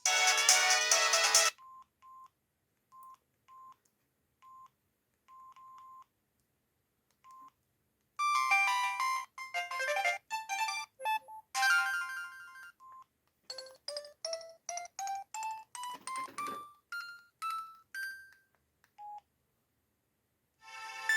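Samsung SGH-B300 mobile phone playing its ringtones through the phone's small speaker. One tune cuts off about a second and a half in, followed by a few short single-pitch beeps. About eight seconds in another ringtone melody starts, runs through a climbing sequence of notes in the middle, and stops near the end.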